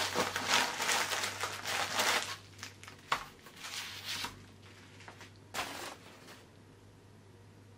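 Plastic poly mailer crinkling and rustling as it is torn open and a bubble-wrapped package is pulled out. The rustling is dense for about the first two seconds, then comes as a few separate rustles.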